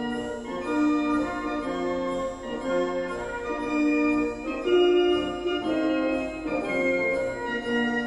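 Slow instrumental background music of held, sustained notes that change about once a second.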